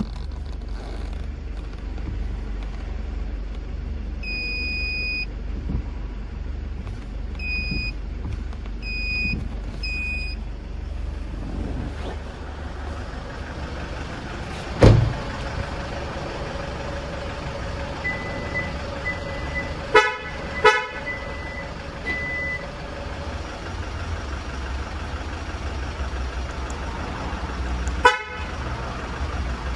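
Car alarm and horn signals from a SsangYong G4 Rexton fitted with a Mykey Premium 2 remote-start alarm, being operated: one longer electronic beep, then three short beeps, a thump, and later two short horn toots in quick succession and one more near the end, over a steady low rumble.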